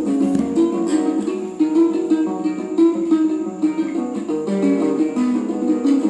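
Background music led by a plucked string instrument, likely ukulele, playing quick notes.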